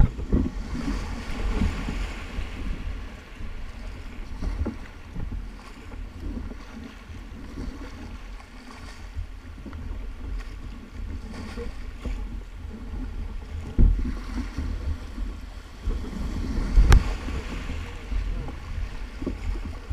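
River water rushing and splashing around an inflatable tandem kayak running through fast, broken water, with paddle splashes and wind buffeting the microphone. A few sharp thumps stand out, the loudest about 14 and 17 seconds in.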